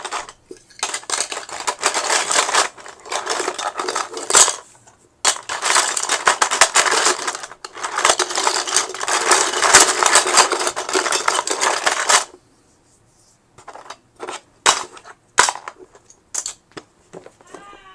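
Loose plastic Lego pieces clattering as a hand rummages through a storage bin: dense rattling in several long stretches with short pauses, stopping about twelve seconds in, then a few scattered clicks.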